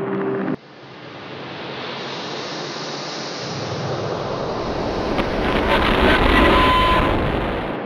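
Electronic sound design: a pitched drone cuts off abruptly about half a second in, then a rush of noise swells up slowly, a deep rumble joins it about halfway through, and it peaks near the end before cutting off.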